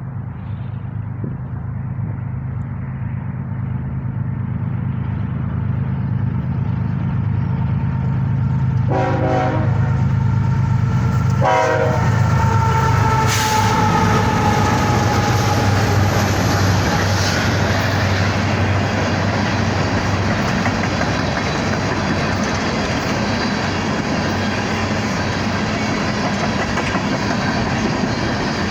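Freight train approaching and passing, led by a GE ES44AC diesel locomotive: a steady low engine drone builds, two horn blasts sound about nine and eleven seconds in, then the locomotives and empty coal hoppers pass with steady rail and wheel noise.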